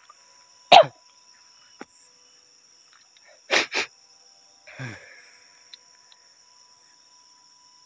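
A person sneezes once, loud and sharp, then about three seconds later gives two quick coughs, followed by a shorter throaty cough.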